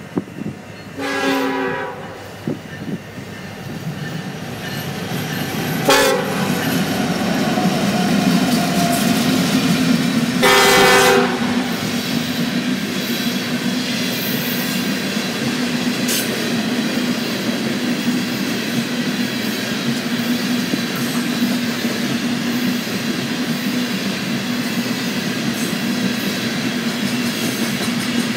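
Horn of BNSF SD70ACe locomotive 9215 sounding three blasts as the coal train approaches, the last, about ten seconds in, the longest. Then the train passes close by, and its coal hoppers roll past with a steady rumble and clatter of wheels on the rails.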